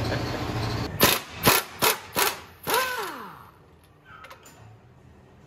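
Cordless impact wrench fired in four short bursts, then a longer run whose motor pitch slides down as it spins to a stop, while bolts are being undone under the car.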